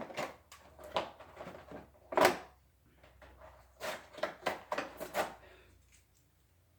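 Wrapping paper tearing and rustling as a Christmas present is unwrapped, in a string of short crackles, the loudest about two seconds in, dying away after about five seconds.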